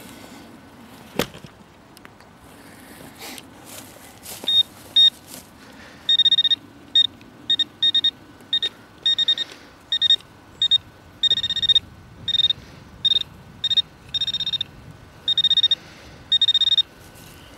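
Metal detector's high-pitched electronic target tone, cutting in and out in many short beeps of varying length as it sweeps over buried metal, signalling a target in the ground. A single sharp knock about a second in.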